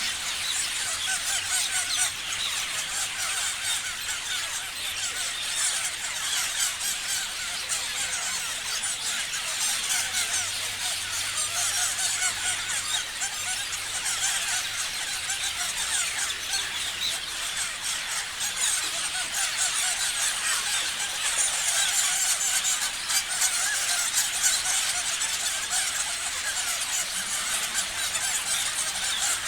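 A flock of parrots chirping and screeching without pause, many high calls overlapping into a dense chatter.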